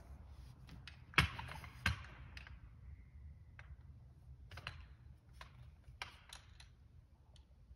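Light knocks and clicks from a small wooden model car being handled, with two sharper knocks a little over a second in followed by scattered lighter clicks.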